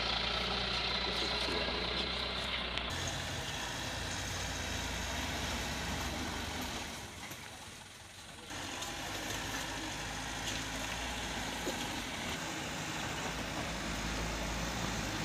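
Light truck's diesel engine running as it crawls over a rough, rocky dirt track, a steady low drone. The sound changes abruptly about three seconds in and drops away briefly around eight seconds.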